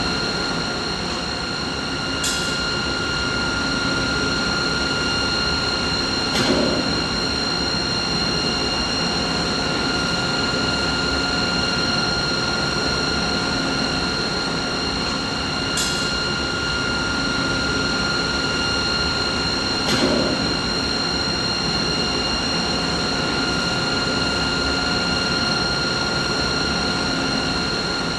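Steady machine noise: a constant high whine with its overtones over a broad hiss. Faint clicks and a brief low swell come back about every thirteen and a half seconds, as in a repeating loop.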